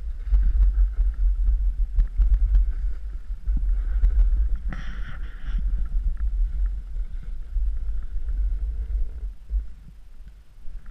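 Wind buffeting the microphone of a helmet-mounted action camera during a snowboard run, a loud low rumble, with the board scraping over chopped snow. A brief harsher scrape comes about five seconds in, and the rumble eases near the end as the board slows.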